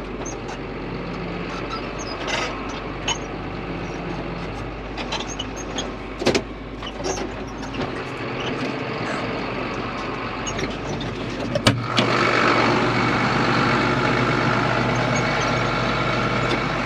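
Engine running steadily, with scattered clicks and knocks. About twelve seconds in there is a sharp click, and the engine sound becomes louder and stays that way.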